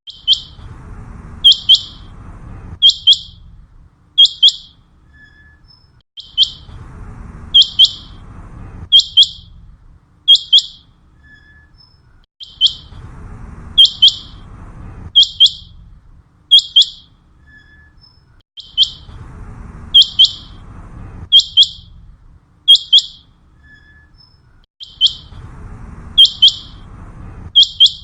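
Common quail calling its sharp, high, clipped notes, one note then quick pairs, in a phrase that repeats almost identically about every six seconds, as in a looped hunting lure call. A faint low rumble recurs under each phrase.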